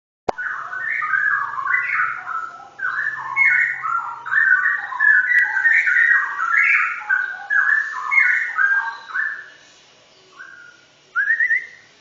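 Caged songbird singing a long, fast run of clear whistled phrases that jump up and down in pitch, fading out near the end, then a short rising trill.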